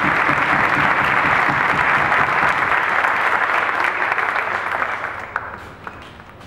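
Audience applauding, the clapping thinning out and dying away from about five seconds in.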